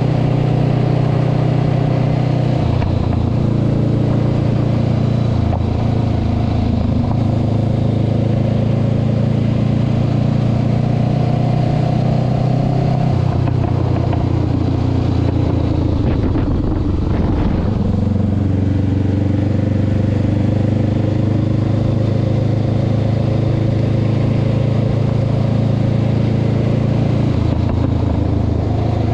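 Honda CB500X's parallel-twin engine running steadily as the bike is ridden, its note stepping to a new pitch a few times. It turns rougher and noisier for a couple of seconds past the middle.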